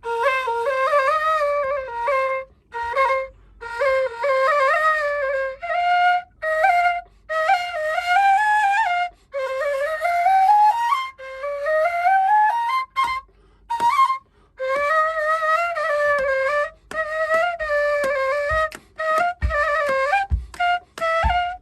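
Kawala, the Egyptian end-blown reed flute, playing a solo improvised introduction: single-line melodic phrases with slides and ornaments, separated by short breaths and pauses. A few low thumps come in near the end.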